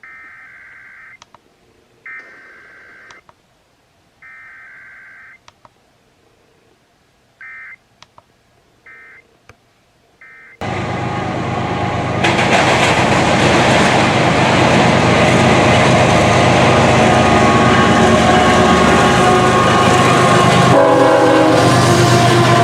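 Emergency Alert System SAME data bursts, a warbling two-tone digital screech: three bursts of about a second each a second apart, then three short bursts marking the end of the message. About ten seconds in, much louder radio music starts and runs on.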